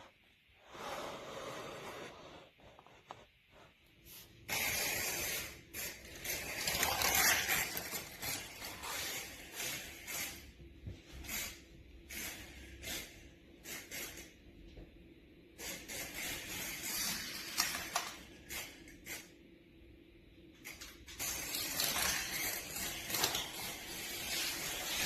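Die-cast toy cars rolling along plastic track: a rushing, rattling noise in long runs with many clicks and knocks.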